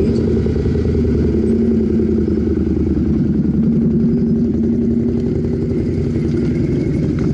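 ATV engines running steadily at low speed on a rocky track, a dense low rumble with a steady engine hum.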